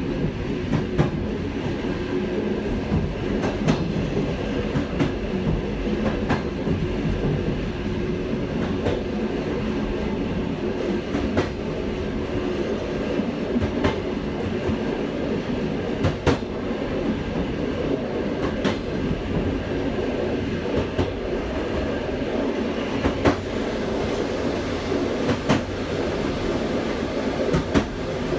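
Train running at speed: a steady rumble of wheels on rail, with a sharp click from the wheels crossing the rail joints about every two and a half seconds.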